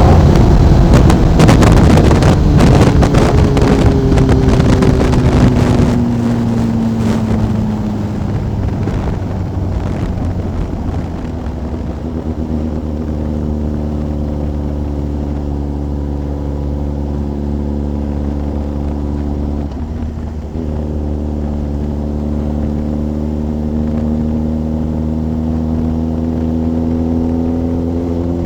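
Sport motorcycle engine and exhaust heard from the rider's seat. The pitch falls as the bike slows, with wind rushing past the microphone for the first several seconds. The engine then settles into a steady low drone that rises slightly in pitch near the end.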